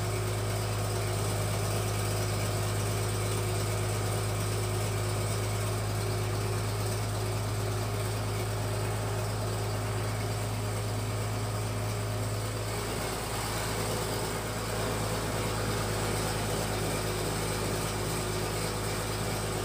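Fish-feed pellet machine running steadily under load as it extrudes feed strands through its die, a steady low hum with a slight dip about thirteen seconds in.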